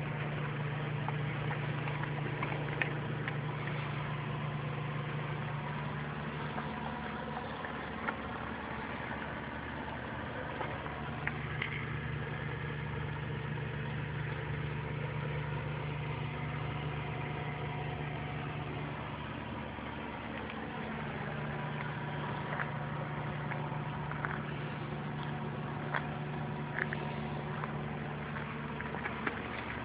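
Gas Gas Wild 300 ATV's two-stroke engine idling with a steady low note.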